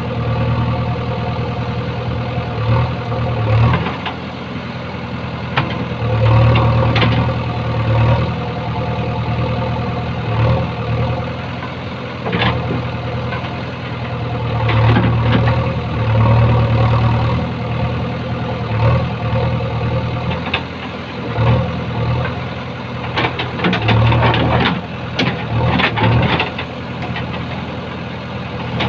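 JCB 3DX backhoe loader's diesel engine running and swelling several times under hydraulic load as the backhoe digs a trench, with scattered knocks and scrapes from the digging arm and bucket in stony soil.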